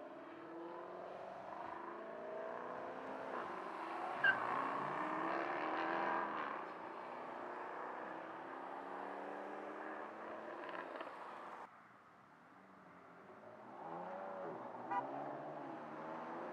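Cars accelerating away and passing on the road, engine notes rising and falling as they go through the gears; a Jaguar F-Type convertible pulls out in the first part. The sound drops off suddenly about twelve seconds in, then a BMW M4's engine builds near the end.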